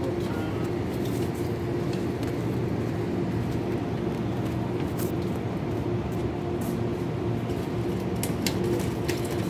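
Steady hum of supermarket refrigerated display cases and ventilation, holding a few fixed low tones, with a few faint clicks.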